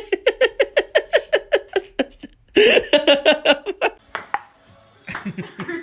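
A person laughing hard in quick, repeated bursts, in two fits. Near the end come a few sharp clicks of a ping-pong ball bouncing on a table.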